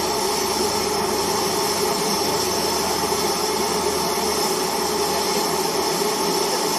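A steam locomotive standing close by in steam, giving a steady hissing drone with a hum in it.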